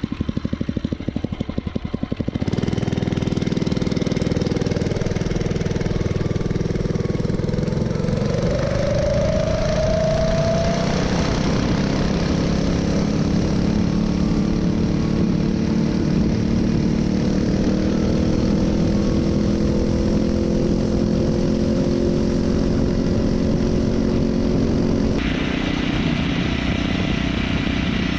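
Phatmoto Rover's 79cc four-stroke single-cylinder engine running. It idles with an even pulse, gets louder about two seconds in, climbs in pitch between about eight and eleven seconds in, and then runs steadily at higher revs.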